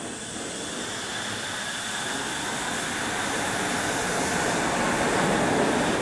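Suspended monorail train pulling out of the station and accelerating past, a rushing noise that grows steadily louder, with faint steady high-pitched whine from its motors.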